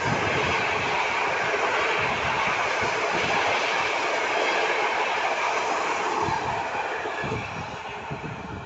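Passenger coaches of a locomotive-hauled train rolling past at close range, wheels clattering on the track. The noise eases off near the end as the last coaches pull away.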